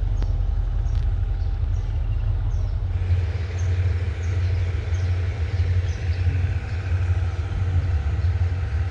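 Low, steady rumble of an Alsthom diesel-electric locomotive's engine running as it moves through a railway yard. The sound grows a little fuller about three seconds in.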